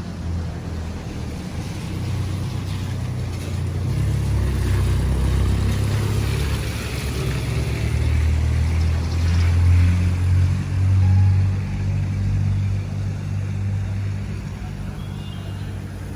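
Street traffic on a rain-wet road: a steady low rumble, with the hiss of a vehicle's tyres swelling through the middle and fading again.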